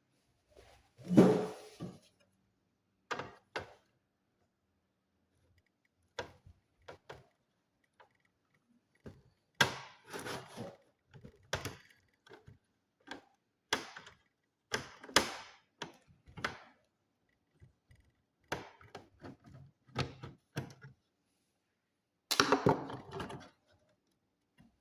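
Irregular clicks and knocks of the plastic casing and parts of a Lenovo all-in-one PC being handled while it is worked on, some taps faint and a few sharper knocks louder.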